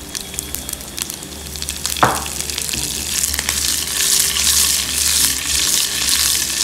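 Curry leaves, mustard seeds, urad dal and crushed garlic frying in hot oil in a nonstick pan for a South Indian tempering. There is a single sharp pop about two seconds in, then the sizzling grows louder from about three seconds on, as the fresh curry leaves hit the oil.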